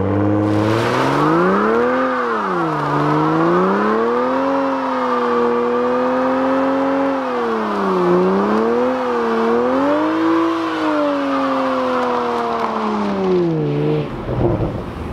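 Toyota GR Supra engine held at high revs during a burnout, its pitch rising and falling repeatedly as the throttle is worked while the rear tyres spin. The revs drop away near the end as the car pulls off.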